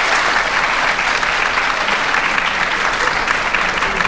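Large audience applauding: dense, steady clapping from a packed hall.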